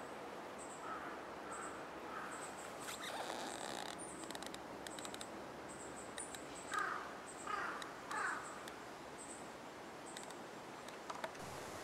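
Outdoor ambience with wind noise on the microphone and a faint high chirp repeating every half second or so. A run of small clicks comes about three to five seconds in, and three short calls, the loudest sounds, come in quick succession a little past the middle.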